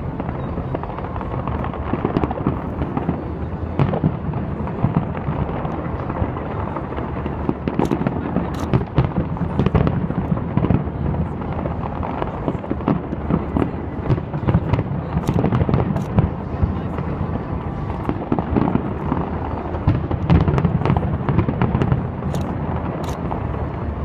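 Fireworks display: a continuous barrage of aerial shells bursting, many sharp bangs and crackles in quick succession over a steady rumble.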